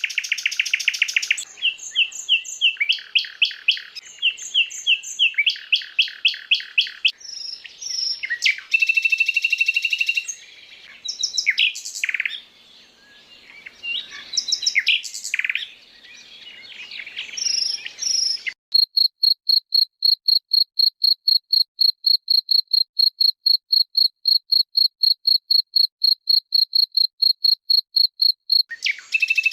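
Recorded songbird calls in a training mix: varied high chirps and fast repeated trill phrases from more than one bird. About two-thirds of the way in they give way to a long, even series of identical high piping notes, about five a second, for roughly ten seconds.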